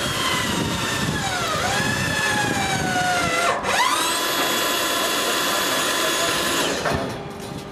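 Electric press-fitting tool's motor whining as its jaw crimps a Mapress carbon steel press fitting onto the pipe, the pitch sinking steadily as it loads up. It breaks off about three and a half seconds in, then runs again at a steady, higher pitch and stops near the end.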